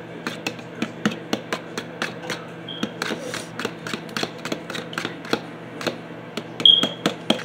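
Fork clicking against the side of a bowl while beating raw eggs by hand, a quick steady rhythm of about four taps a second. A brief high-pitched squeak stands out near the end.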